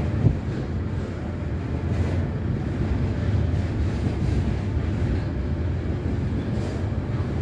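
Low, steady rumble of a Class 66 diesel locomotive's two-stroke EMD V12 working at full throttle (notch 8) while hauling a heavy freight train up a grade, heard at a distance with wind on the microphone. There is one short knock about a third of a second in.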